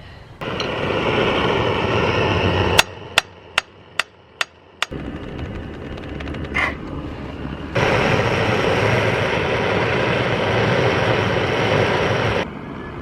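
A steady hiss of a torch flame heating the chainsaw's aluminium casing to free a seized fastener, broken about three seconds in by about six sharp hammer taps in quick succession. The hiss then grows louder again and cuts off shortly before the end.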